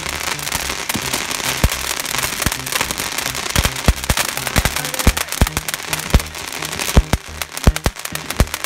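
Ground fountain firework spraying sparks with a steady hiss, joined from about a second and a half in by sharp crackling pops that come thicker toward the end.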